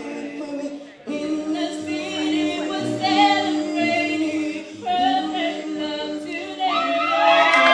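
A vocal group of women and men singing together in harmony, holding long notes. They break off briefly about a second in, and the voices swell louder with higher notes near the end.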